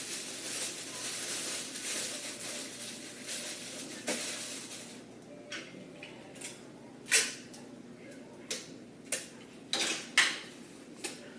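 Mylar emergency blanket crinkling as it is handled: a continuous crinkly rustle at first, then short sharp crackles, two of them louder about 7 and 10 seconds in.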